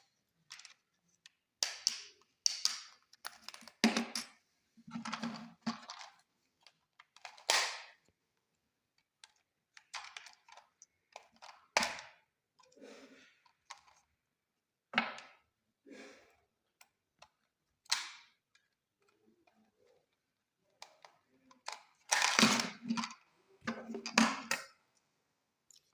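Irregular plastic clicks and short clatters of a toy RC car and its controller being handled and fitted with batteries, with silent gaps between them and a louder run of clatter near the end.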